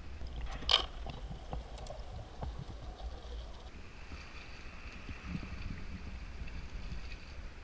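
Steady low rumble of wind and water around a small open boat, with a single sharp knock about a second in. A faint, high, steady whine joins from about four seconds in.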